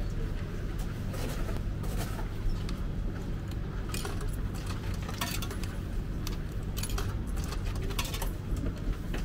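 Coins being fed one at a time into an old vending machine's coin slot, each dropping into the coin mechanism with a sharp metallic clink; the clinks come irregularly, several in the span, over a steady low background hum.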